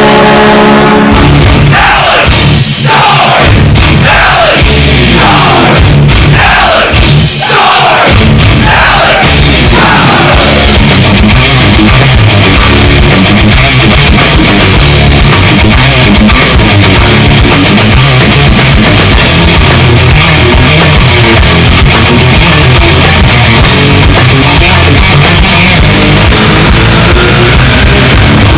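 Dallas Stars goal horn sounding a steady chord that stops about a second in, giving way to a loud rock goal song. The song opens with a run of falling stabs about one a second, then settles into steady driving heavy rock.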